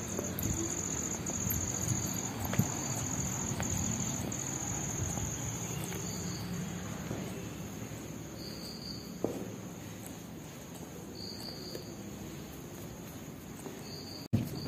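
Insects trilling: a high, steady trill broken into stretches for the first six seconds, then a few short trills later on, over a low background rumble.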